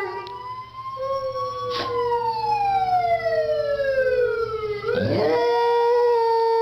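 Dogs howling in long, overlapping held notes: one voice slides slowly down in pitch while another holds steady, and a fresh howl sweeps up and settles about five seconds in.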